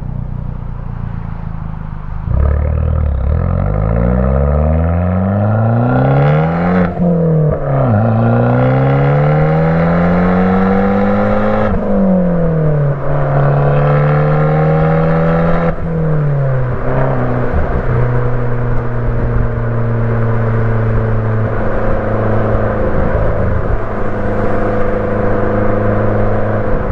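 Fiat 500 Abarth's turbocharged 1.4-litre four-cylinder through an MPx cat-back exhaust, accelerating through the gears. The engine note climbs, drops back at three upshifts, then settles into a steady cruise.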